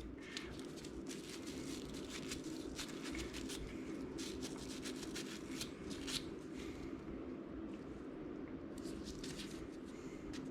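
Faint handling noise: scattered light clicks and rubbing as a rust-blackened wrench is turned over in the hands, over a steady low hum.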